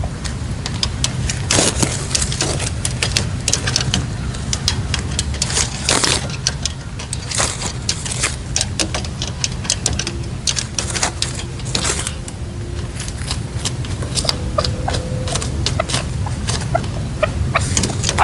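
Wind buffeting the microphone in a steady low rumble with crackling gusts. From about ten seconds in, red-legged partridges give soft, low calls at the decoy cage, and a quick run of short notes comes near the end.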